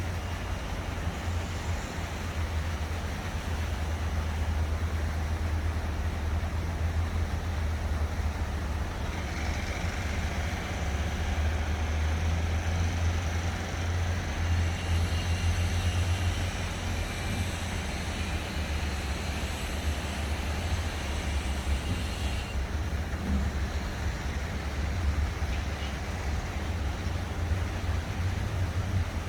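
Urban ambience: a steady low rumble of distant traffic and construction work, under an even hiss of fountain water. A brighter, higher hiss joins about nine seconds in and cuts off suddenly about twenty-two seconds in.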